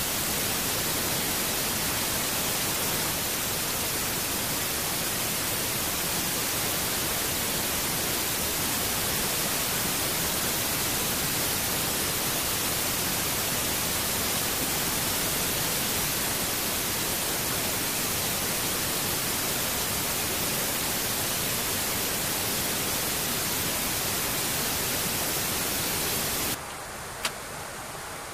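Steady rushing cabin noise inside an E-3 Sentry in flight, an even hiss of airflow and engines. Near the end it drops to a quieter hiss, with a single click.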